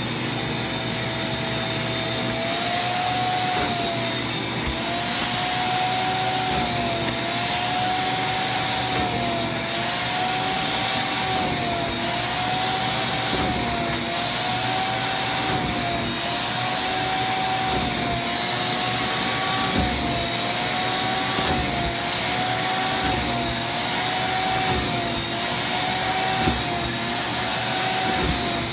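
Vacuum cleaner running steadily as it sucks rinse water back out of a carpet, its motor whine dipping and rising in pitch about every two seconds.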